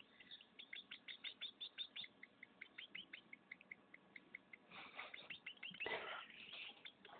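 Hand-fed baby birds giving begging chirps: a fast run of short, high peeps, about four to five a second, with louder, harsher calls about five and six seconds in.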